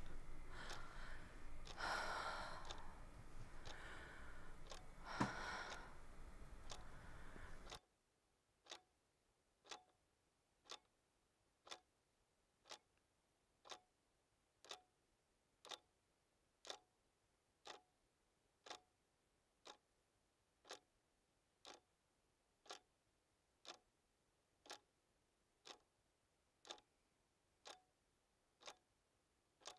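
Faint room tone with a few soft noises and one sharp click, then the background cuts out about eight seconds in and a clock ticks steadily, about once a second.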